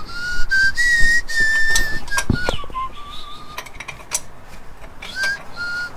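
A person whistling a wandering tune, note to note. Under it are a few sharp clicks and a thump about two seconds in, from parts or tools being handled.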